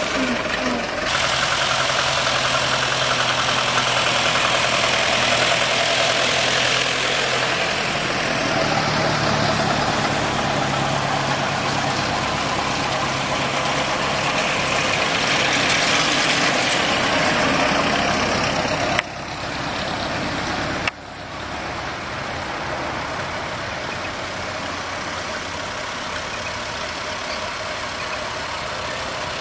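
Ford Model T four-cylinder side-valve engines running at low speed as the cars drive past one after another. The sound drops abruptly about two-thirds of the way through.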